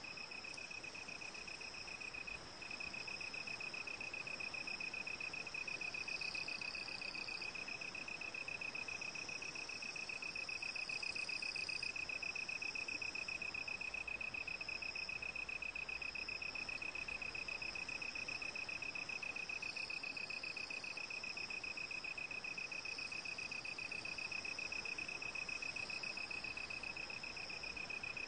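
Crickets trilling continuously outdoors in a steady high-pitched pulsing trill, with fainter, higher insect song above it.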